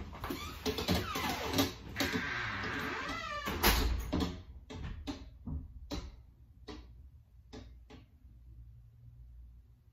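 Scuffling and rustling with a few bending squeaks, then a door thudding shut about four seconds in, followed by scattered light clicks as things go quiet.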